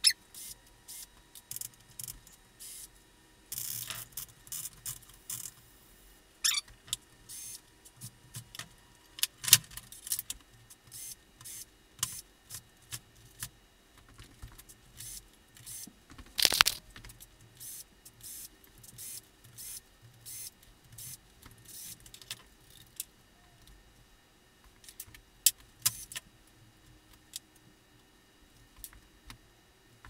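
Irregular metallic clicks, knocks and rattles of a Smith Corona electric typewriter's parts being worked loose and handled during disassembly. A longer, louder clatter comes about halfway through.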